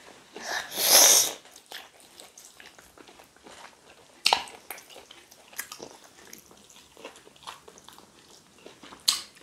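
Close-up eating sounds of people chewing soft food taken by hand, with small wet smacks and clicks. A short loud hiss comes about a second in, and a sharper smack a little after four seconds.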